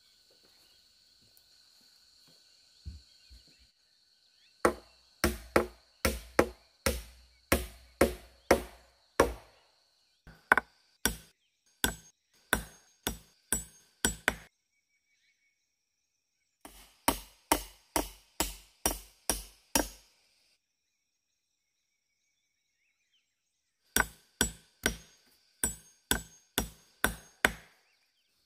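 A hand-held chopping blade striking a green wooden pole: sharp wooden chops at about two a second, in four runs of eight to ten strikes with pauses between.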